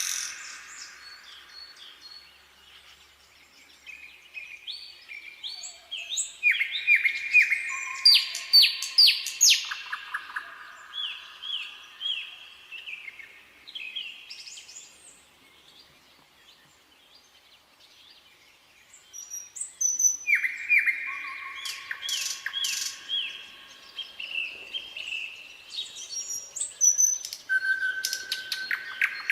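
Nightingale singing: two phrases of rapidly repeated notes, clear whistles and rattling trills, separated by a pause of several seconds.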